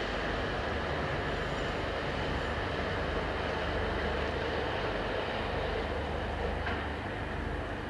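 Train rolling along the track: a steady, even rumble and rush that eases off a little near the end as it draws away.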